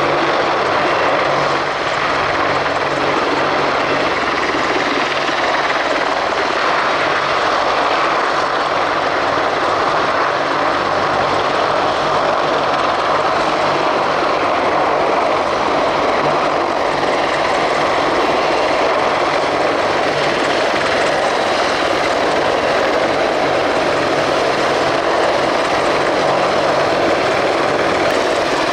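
AH-64 Apache attack helicopter flying low and close, its twin turboshaft engines and rotors running with a steady, loud noise.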